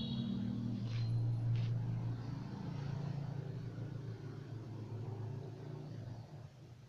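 A low, steady motor hum that fades away near the end, with two faint clicks about a second in.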